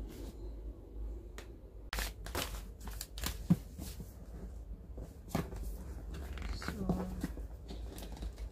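A cardboard gift box being handled and its fitted lid worked loose: irregular papery scrapes and rustles with light knocks, the sharpest knock about three and a half seconds in.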